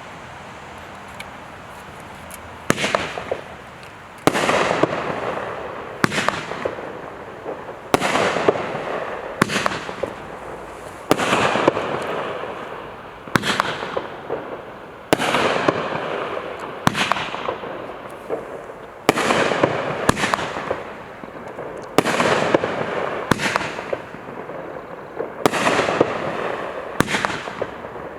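Crackerjack 16-shot firework cake firing shot after shot, about one every one and a half to two seconds, each a sharp bang followed by a fading crackle. The shots start a little over two and a half seconds in, after a steady hiss.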